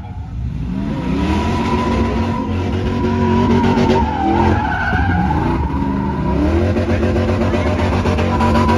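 Pickup truck doing a burnout: the engine revs high, climbing and holding several times, over a continuous tire squeal.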